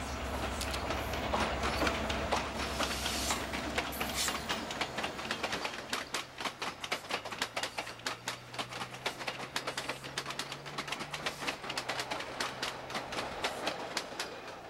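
EMD F40PH diesel locomotive running as it comes close and passes, its engine drone fading after a few seconds. Then its passenger coaches roll by with a rapid, irregular clatter of wheels over rail joints and switches.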